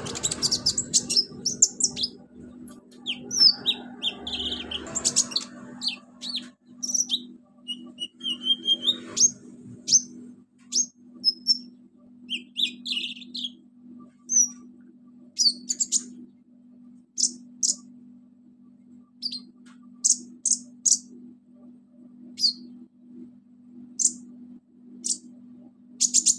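Caged sunbird (konin, kolibri ninja) singing. For about the first ten seconds it gives a fast, varied run of high chirps, trills and short whistles, then single sharp chirps a second or two apart. A faint steady hum runs underneath.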